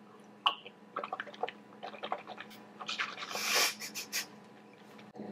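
A sip of coffee from a mug, then the coffee swished around the mouth to rinse salad out of the teeth: soft wet mouth clicks and a longer hissing swish about three seconds in.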